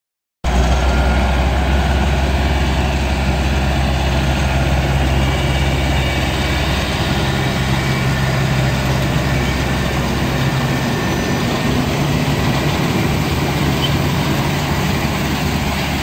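Diesel farm tractor engine running steadily, together with the clatter of harvesting machinery. It cuts in abruptly about half a second in.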